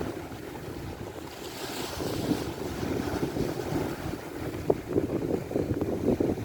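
Strong wind buffeting the microphone over sloshing water on a boat at sea, with a few sharp knocks in the second half.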